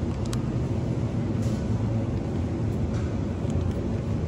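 Steady low rumble of supermarket background noise around the refrigerated display cases, with a couple of faint clicks.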